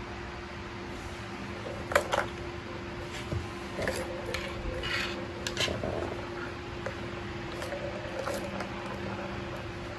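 Light plastic clicks and knocks from a three-tier ball-track cat toy being nosed and handled, with two sharper knocks about two seconds in and a scatter of smaller clicks after, over a steady low hum.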